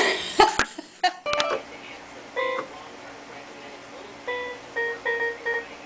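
Small electronic keyboard played by a cat's paw: about five short single notes, one at a time and unevenly spaced, starting about two and a half seconds in. Before them come a brief rustle and a few clicks.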